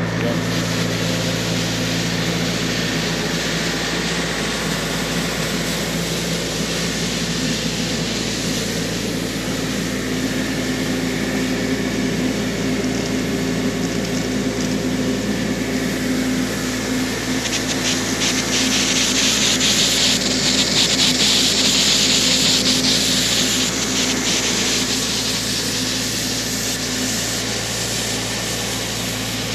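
Doosan P185 diesel tow-behind air compressor running steadily, driving compressed air into a sprinkler zone to clear the water from the lines for winter. Pop-up sprinkler heads hiss as they spit out a spray of water and air, louder for several seconds just past the middle.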